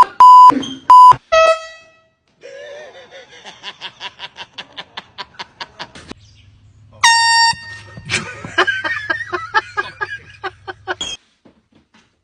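Air horn blasting in three short, loud bursts, then once more about seven seconds in, with fainter rapid pulsing sounds in between and afterwards.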